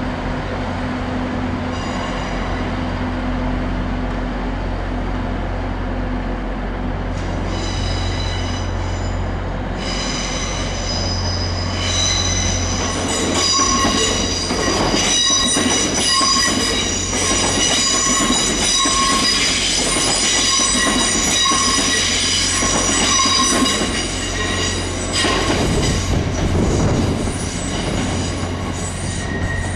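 Wheels of a TransPennine Express Class 802 train squealing as it runs round curved track: a high, multi-tone squeal that starts about eight seconds in, grows loud and fades near the end, with clicks of the wheels over rail joints. Before it, a steady low hum.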